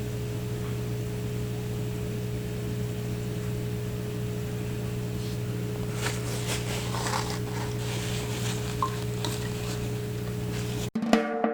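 Steady low electrical hum with faint scattered scraping and clicking in its second half; plucked guitar music cuts in abruptly near the end.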